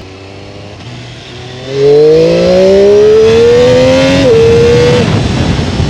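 A vehicle engine accelerating hard: its pitch climbs steadily for about three seconds, drops suddenly at a gear shift, then holds on the next gear.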